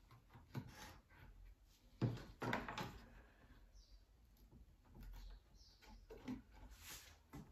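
Faint, scattered knocks and taps of small gilded wooden pieces being handled and test-fitted on a wooden workbench, with a brief cluster of louder knocks about two seconds in.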